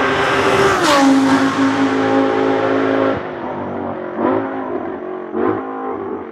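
Audi R8 LMS GT2 race car's 5.2-litre V10 at full throttle, loud as it passes close, its pitch dropping as it goes by. About three seconds in the engine is cut off sharply as the car lifts off, followed by two short throttle blips, downshifts under braking.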